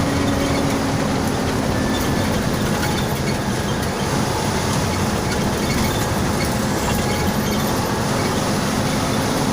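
Steady engine hum and road rumble of a moving intercity bus, with no sudden events.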